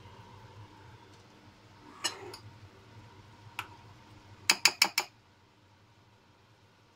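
Metal fork clinking against a frying pan: a knock about two seconds in, another a second and a half later, then a quick run of four sharp clinks, the loudest, about halfway through.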